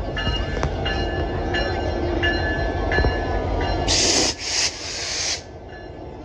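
Diesel locomotive of the Canadian Pacific Holiday Train running past close by, its bell ringing about twice a second over the engine. About four seconds in, a loud hiss lasts about a second and a half, and the engine is quieter after it.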